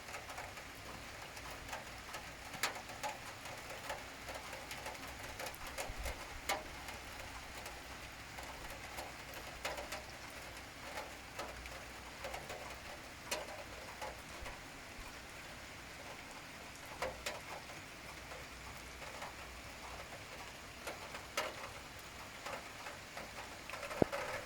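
Steady rain falling, a continuous hiss with individual drops clicking sharply on hard surfaces at irregular intervals.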